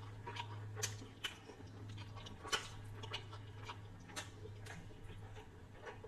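Close-up chewing of chicken biryani and curry, with irregular wet mouth clicks and smacks, one sharper smack about two and a half seconds in, over a steady low hum.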